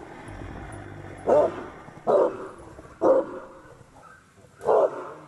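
A large black dog barking: four single barks about a second apart, the last after a slightly longer pause.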